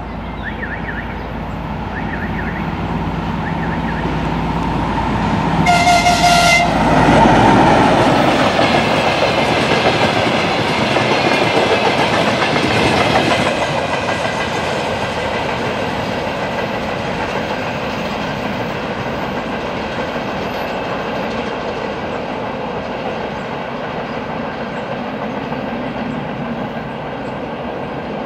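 M62 diesel locomotive's two-stroke V12 engine running as it approaches, sounding its horn in one blast of about a second some six seconds in. It then passes close, followed by a long train of tank wagons rolling by, the sound slowly fading as the train moves away.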